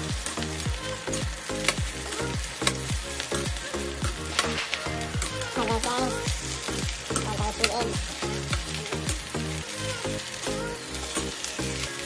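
Rice with egg frying and sizzling in a metal frying pan while a metal spoon stirs it, scraping and clicking against the pan.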